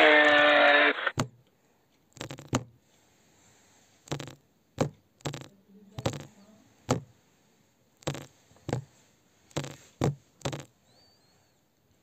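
A moose's pitched, drawn-out call ends about a second in. It is followed by about a dozen short, sharp knocks at uneven intervals.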